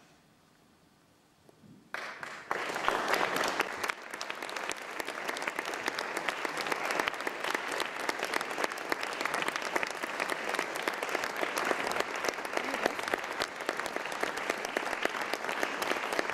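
Audience applauding. It breaks out suddenly about two seconds in after a moment of near silence, is loudest in the first couple of seconds, then carries on steadily.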